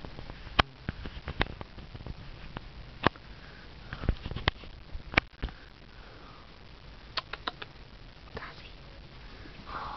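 Irregular sharp clicks and smacks from a drooling Great Dane at close range, coming singly and in small clusters every second or so.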